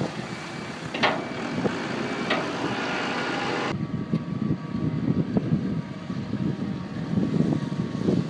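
Tractor engine running while gravel is tipped into the drainer's hopper, with two sharp knocks about a second apart early in the clip. After a sudden change about a third of the way through, a steady low rumble as the tractor pulls the gravel mole drainer through the ground.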